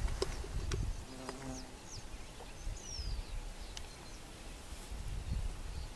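A flying insect buzzing briefly near the microphone, over steady wind rumble on the mic, with a few short high bird chirps about halfway through.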